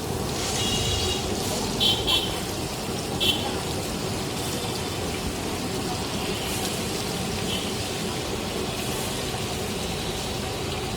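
Steady hiss of shik kababs sizzling over a charcoal grill, with a few short high ringing tones in the first few seconds.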